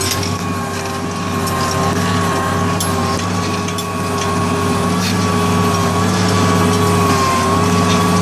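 John Deere tractor engine running steadily under load while pulling a Kverneland plough, with a steady high whine over the low engine note.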